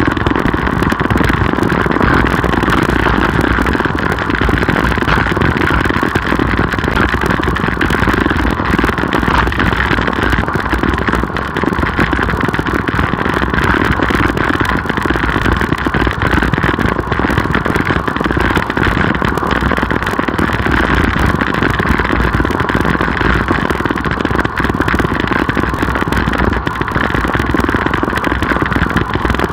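Steady, loud wind rush on the microphone of a road bicycle's ride camera, with tyre and road rumble from the bike riding along.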